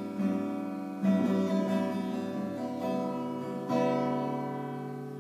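Acoustic guitar chords strummed and left to ring: a fresh strum about a second in and another near four seconds, each fading slowly.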